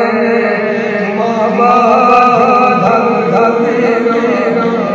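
An elderly man singing a naat unaccompanied into a microphone, in long held notes that waver and slide in pitch.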